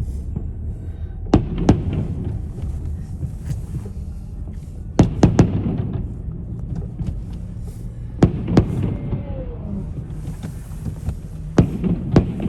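Fireworks going off outside a moving car: about nine sharp bangs in clusters of two or three, a few seconds apart, over the steady low rumble of the car cabin.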